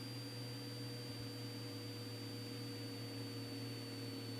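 Faint, steady low hum with a thin, high, steady whine above it: the Cessna 206 Stationair's engine and propeller drone at reduced power on final approach.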